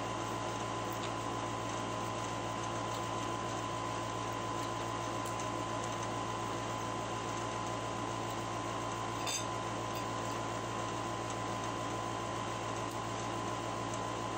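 Steady mechanical room hum with a thin constant whine, like a running fan or air conditioner. There is a single light clink of cutlery about nine seconds in.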